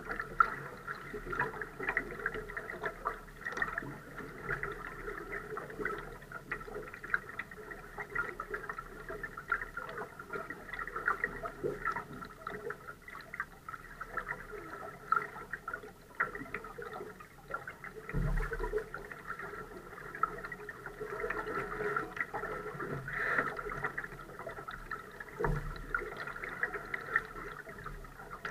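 Water lapping and gurgling against the hull of a Laser sailing dinghy moving slowly in light air, a steady patter of small splashes. Two dull low thumps come about two-thirds of the way through and again near the end.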